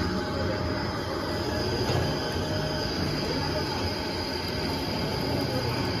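Wood shredding machinery and a belt conveyor running continuously, as shredded wood chips stream off the belt onto a pile. A steady mechanical din with a thin high whine.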